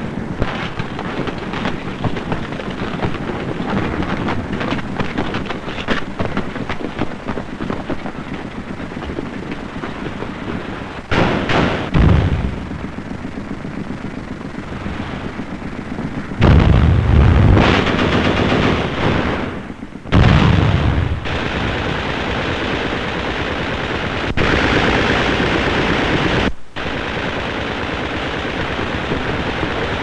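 Sustained gunfire with rapid machine-gun fire. Several louder, deeper bangs stand out about a third of the way in, just past halfway and about two-thirds in.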